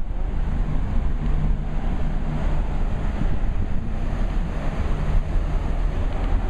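Steady wind buffeting the microphone on a moving cruise ship's open deck, over the rushing of the ship's churning wake, with a low hum in the first few seconds.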